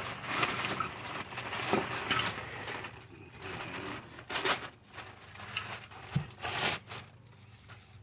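Clear plastic bag crinkling and rustling as a new wheel bearing hub assembly is handled and unwrapped, with a few sharper crackles.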